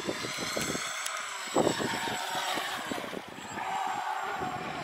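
Small RC speedboat's motor whining at speed as the boat skims and turns across the water, its pitch rising and falling.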